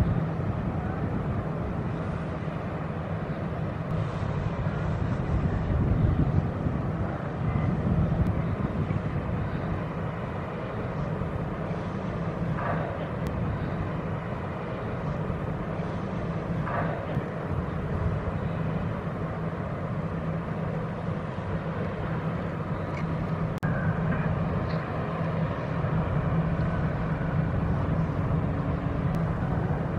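Low, steady drone of a large RoRo cargo ship's engines as it passes close by, with a constant hum and outdoor rumble.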